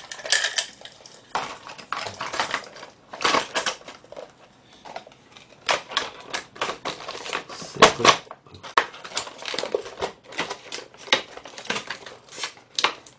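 Stiff clear plastic packaging and a cardboard box being handled: a long run of irregular clicks, taps and crackles as the plastic insert is fitted back around a toy coin bank.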